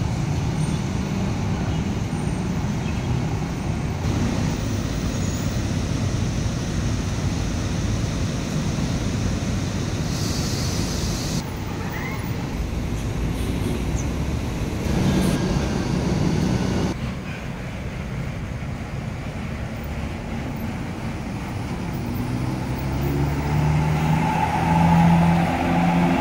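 Large coach buses' diesel engines running at a bus terminal, a steady low rumble with a short hiss about ten seconds in. Near the end one bus engine grows louder and rises as the coach pulls away.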